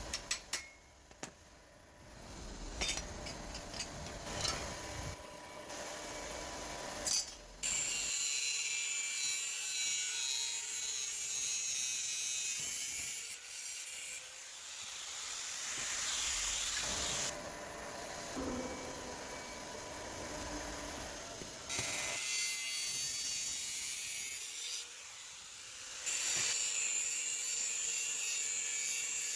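Metal being cut or ground: a harsh high hiss in several stretches of a few seconds each, after a few knocks and clatters in the first part.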